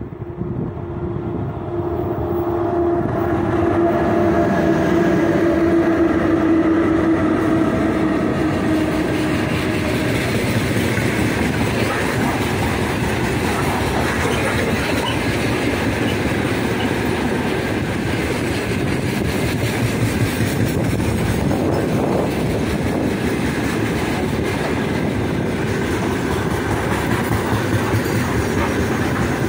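Heavy freight train behind a 3ES5K 'Ermak' electric locomotive passing close by. The locomotive's steady hum grows louder over the first few seconds as it draws near and fades out about ten seconds in. After that comes the continuous rumble and clickety-clack of loaded open wagons rolling past.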